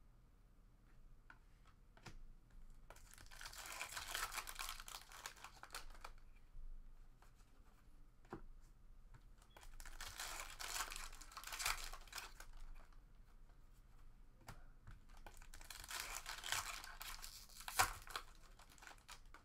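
Foil trading-card pack wrappers being torn open and crinkled by hand, in three bursts of tearing and crackling a few seconds apart, with a sharp click near the end.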